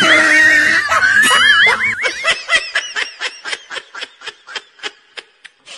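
High-pitched laughter: a squealing, wavering laugh at first, then a run of short quick laughs, about five a second, getting fainter.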